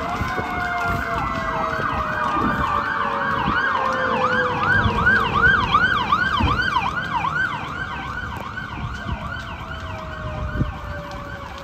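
Fire vehicle's siren on yelp as it drives past: a fast up-and-down wail of about three to four cycles a second, loudest in the middle and fading away in the second half.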